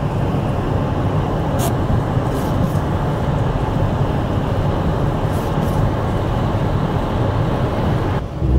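Snowplow truck running steadily along a snow-covered highway, its engine and road noise making a constant low rumble, with an occasional light tick.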